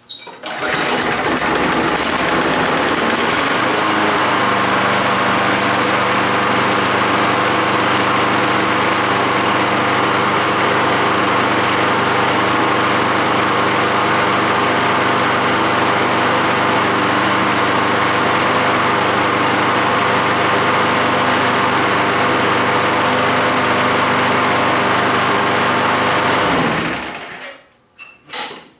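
Walk-behind lawn mower's small gasoline engine catching on a pull start about half a second in, then running steadily at a constant speed before it is shut off near the end. It is an old mower that has been sitting and starts after a couple of yanks, not yet fully warmed up.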